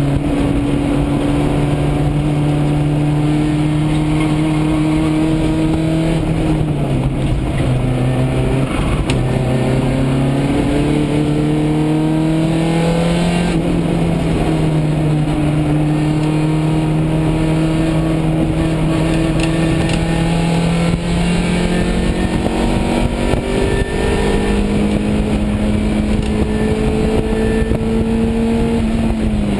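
1990 Honda CRX's D16A6 four-cylinder engine working hard, heard from inside the stripped cabin with road and wind noise. Its pitch climbs steadily under acceleration and drops sharply three times: about six seconds in, about halfway, and near the end.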